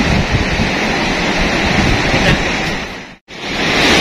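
Sea surf breaking on a coral reef, mixed with wind rushing over the microphone: a steady noise that cuts out abruptly for a split second a little after three seconds in, then carries on.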